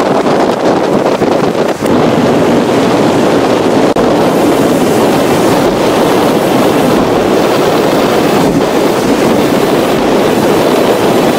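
Strong wind blowing on an outdoor microphone: a loud, steady rushing with no distinct events.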